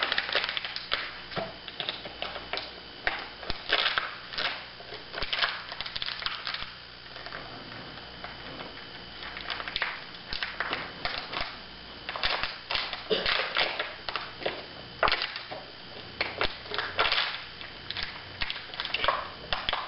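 Thin plastic water bottle crinkling and crackling in quick irregular clusters as it is squeezed, twisted and bent by hand.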